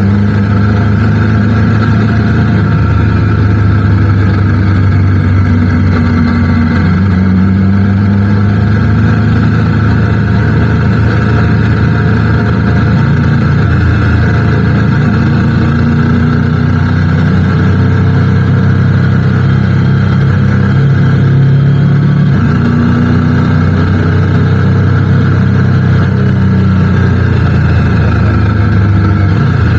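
Motorcycle engine running steadily under way, its pitch rising and falling slightly with small throttle changes.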